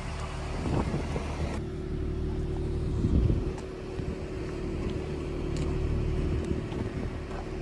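Farm diesel engine running steadily, a low even hum, with a brief louder bump about three seconds in.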